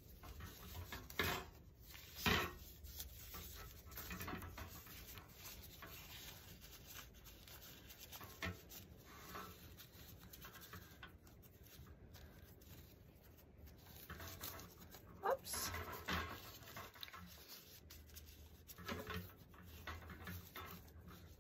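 Thin plastic tablecloth strips rustling and crinkling faintly as they are knotted onto a wire wreath frame and pulled snug, with a short rising squeak about fifteen seconds in.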